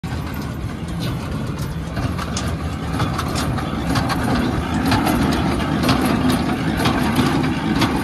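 International 37 small square baler working behind a running Farmall 400 tractor: the tractor engine's steady drone with the baler's mechanism clattering in a run of sharp knocks, a couple each second.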